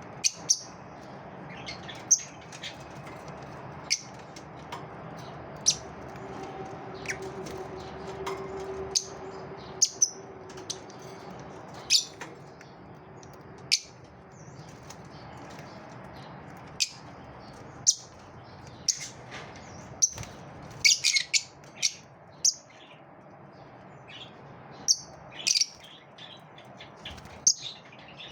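Lovebirds giving short, sharp, high chirps every second or two, with a quick run of several calls about three-quarters of the way through, over a faint steady background hum.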